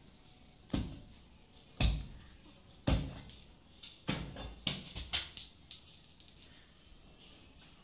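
Soft thumps about once a second, then a quicker run of knocks and rustles starting about four seconds in.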